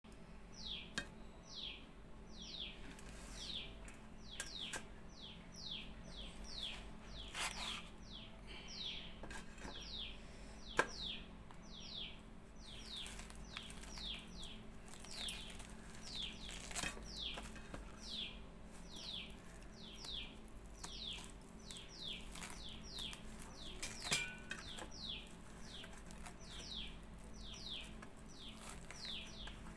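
A small bird chirping over and over, each chirp a quick falling note, about two a second. Scattered sharp clicks and cracks come through as the fibrous skin of a roasted palm fruit is torn off by hand over a steel plate.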